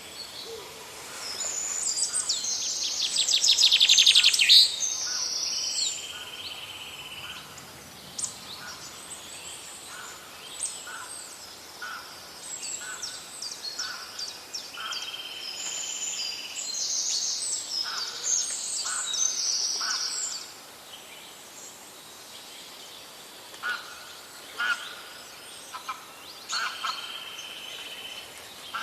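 Several birds singing and calling at once, a mix of chirps, trills and a few held whistled notes. The loudest is a fast rattling trill about four seconds in.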